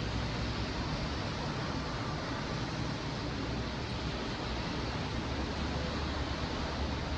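Steady rushing road noise with a low engine rumble underneath, with no siren sounding.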